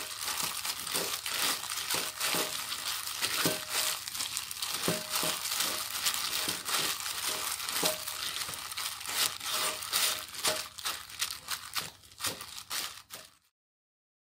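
Hands in thin plastic gloves tossing seasoned, blanched coastal hog fennel greens in a bowl: a dense, steady crinkling of the glove plastic. It thins out and stops near the end.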